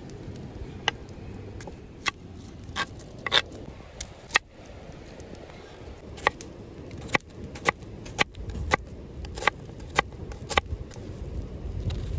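Chef's knife cutting lamb and then a red onion on a thick wooden board, each stroke ending in a sharp knock of the blade on the wood, about fifteen of them at irregular spacing.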